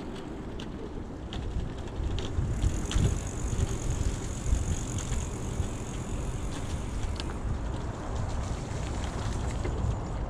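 An electric bicycle being ridden along a damp path, with a steady low rumble from the tyres and wind, and scattered light clicks and rattles from the bike. A high hiss grows louder from about two and a half to seven seconds in.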